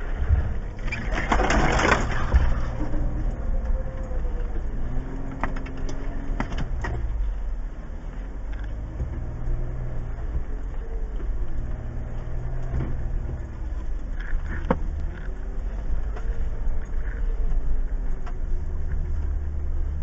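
2015 Jeep Wrangler Unlimited Rubicon's 3.6-litre V6 crawling over a rutted dirt trail, the engine note rising and falling in slow swells as the throttle is worked. A short rush of scraping, crunching noise comes about a second in, with scattered clicks and knocks from the trail.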